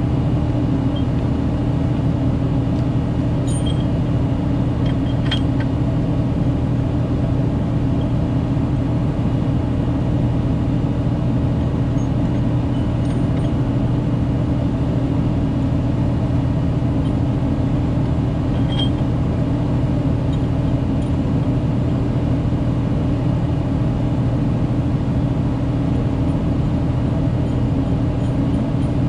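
An engine running steadily at one constant speed: an even, low hum that does not change, with a few faint light clicks over it.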